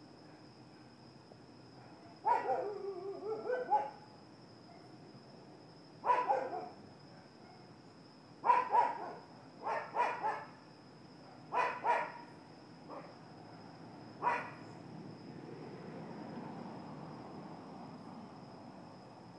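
Dog barking in scattered bouts: a drawn-out run of barks about two seconds in, then single and double barks every second or two until about fourteen seconds in.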